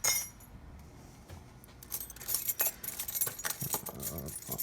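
Loose metal keys and key blanks jingling and clinking as they are picked up and sorted by hand: a bright jingle at the start, then a run of quick clinks from about two seconds in.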